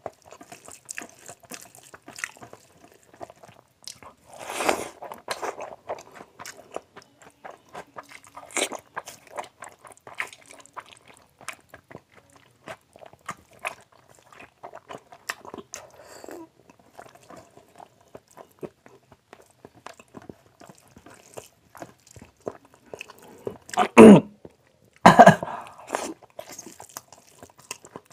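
Close-miked eating by hand: wet chewing and smacking of mouthfuls of rice with mutton fat and potato curry, between squishing sounds of fingers mixing rice into the curry. There are two louder sounds about four seconds before the end.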